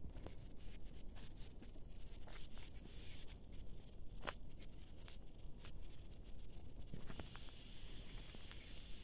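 Dry hillside ambience: a steady high insect chirring, strongest near the end, over a low rumble, with scattered light ticks and crackles.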